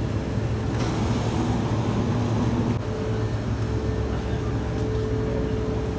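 Steady low mechanical hum, with a thin steady tone joining it about halfway through.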